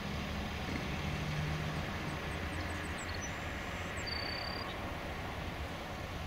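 Steady rumble of road traffic passing, with a few faint high chirps near the middle.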